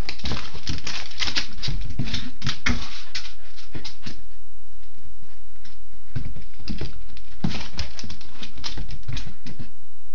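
Shiba Inu's claws clicking and scrabbling on a hardwood floor as the dog chases a laser dot: two flurries of rapid, irregular clicks and paw thumps with a short lull about halfway through.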